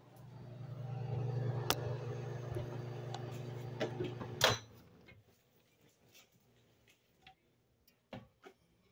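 Microwave oven running with a steady low hum, cut off about four and a half seconds in by a sharp click as its door is opened. A few small knocks follow near the end.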